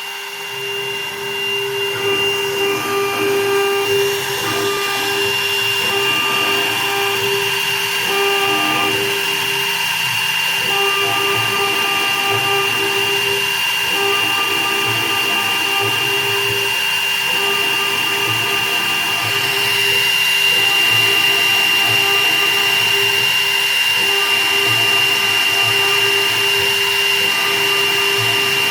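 Small CNC milling machine for wedding rings running: a steady high spindle whine over a lower hum, with a mid-pitched tone that keeps coming and going. The level rises a little about two-thirds of the way through.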